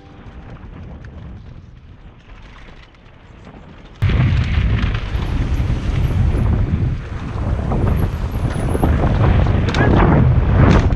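Quiet hiss, then about four seconds in a sudden jump to loud wind buffeting on the microphone with a low rumble from riding, typical of a helmet or bike-mounted camera on a downhill mountain-bike run.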